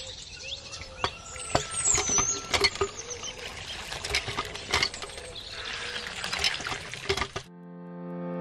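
Water gushing from a miniature hand pump's spout and splashing into a small plastic pond, with sharp clicks throughout and a few high chirps. About seven and a half seconds in the water sound stops and soft music fades in.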